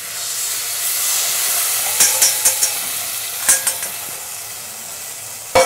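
Tomato puree poured into a hot saucepan of sweated onion and garlic, sizzling as it hits the pan. A few sharp metal clinks come about two and three and a half seconds in, and a loud knock near the end.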